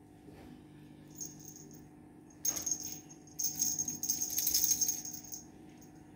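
A cat's wand toy rattling and jingling as a Persian cat bats and grabs at it with its paws: one short burst about two and a half seconds in, then about two seconds of rapid jingling.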